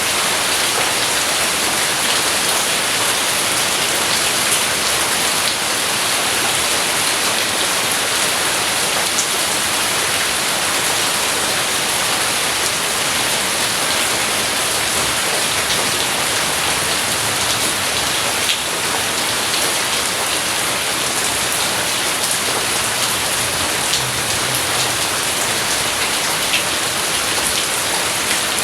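Steady rain falling hard on a surface, an even hiss with a few sharp drop ticks scattered through it.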